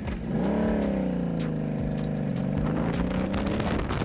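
Motorcycle engine under throttle: its pitch climbs quickly about half a second in, then holds high, sagging a little and rising again, and stops suddenly near the end.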